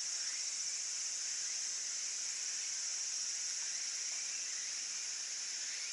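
Steady, high-pitched chorus of insects, an even shrill hiss with no pauses.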